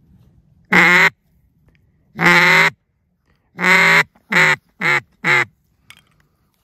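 Duck call blown by a hunter: six loud quacks, two drawn-out ones followed by a quicker run of four shorter ones that drop in pitch at their ends. The calling is meant to coax circling ducks in to land.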